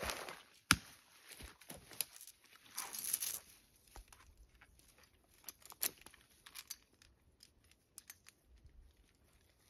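Faint rustling of dry brush and twigs with scattered sharp clicks and clinks as a steel winch cable and its choker hardware are handled. The sharpest click comes about a second in, a rustle around three seconds, and a cluster of clicks about halfway through.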